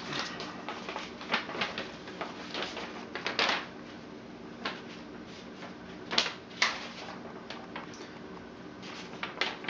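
Stiff, old rolled and creased paper crackling and rustling as the sheets are unrolled and handled, in irregular crackles that are thickest in the first few seconds and come back briefly a little past halfway.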